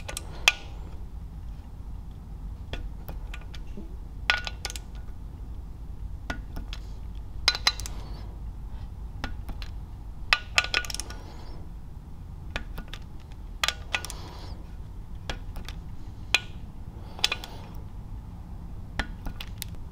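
Ratchet and socket snugging down the aluminium crankcase side cover bolts on a Tillotson 212 small engine: scattered sharp metallic clicks and clinks, some ringing briefly, over a low steady hum.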